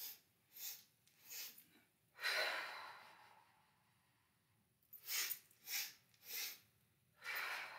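A woman doing the breath of joy breathing exercise: three quick, sharp inhales followed by one long, forceful exhale that is the loudest part. The whole round happens twice.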